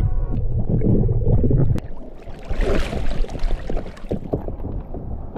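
Water sloshing and splashing around the camera, with a heavy rumble at first and a brief hissing rush a little past halfway, then scattered small knocks.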